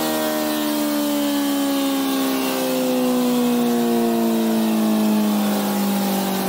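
Kawasaki ZX-14R inline-four engine running hard on a motorcycle dyno, its note falling slowly and steadily in pitch as the revs come down at the end of a run.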